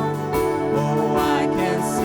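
Church worship music: instruments playing held chords that change every half second or so.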